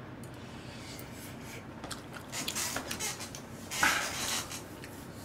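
Quiet eating sounds: a metal spoon scraping and clinking in a thin aluminium ramen pot, with a louder, brief noisy sound nearly four seconds in.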